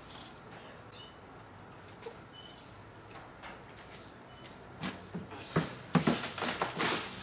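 A few faint, short chirps, likely birds, over a quiet background. About five seconds in comes a burst of scraping and knocking from handwork at the bench.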